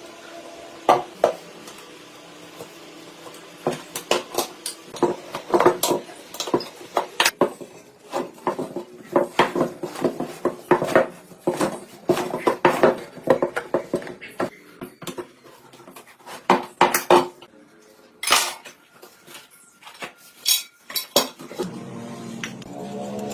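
Metal parts and tools clinking and clattering, with many sharp, irregular knocks in quick succession, as motorcycle parts are handled during restoration work.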